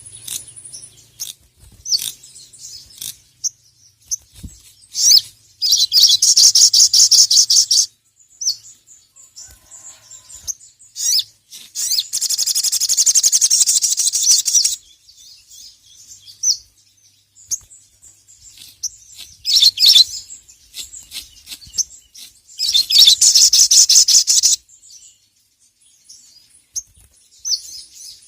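Sogok ontong (sogon) songbird singing: several loud, high, fast-pulsed trills lasting two to three seconds each, with short sharp chirps between them.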